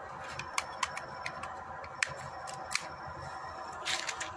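Light plastic-and-metal handling clicks from the pistols being picked up and moved: about six short sharp ticks at irregular intervals, then a brief rustle near the end.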